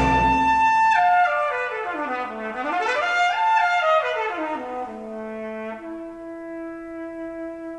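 Solo trumpet playing through DIY three-way floor-standing loudspeakers (Scanspeak Beryllium 6640 tweeter, Audio Technology 15H midrange, Audio Technology 23I woofer), recorded in the listening room. The fuller accompaniment stops about a second in; the trumpet runs down and back up in quick steps, falls again, and then settles on a softer held low note.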